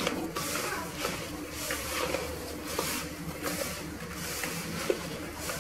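A hand squeezing and rubbing moist semolina dough for harcha in a plastic bowl, working the milk into the grain in repeated strokes about two a second.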